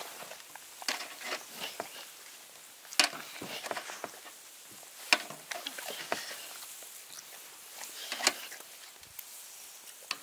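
Irregular sharp knocks and clicks of a knife slicing raw yellowtail on a wooden cutting board, with three louder knocks about three, five and eight seconds in.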